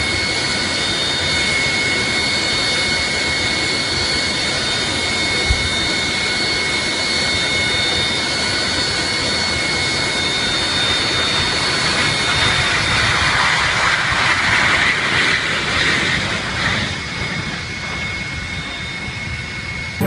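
Jet airliner's engines running on the ground: a loud, steady rushing roar with several high whining tones over it, the rush swelling somewhat about two-thirds of the way through before easing.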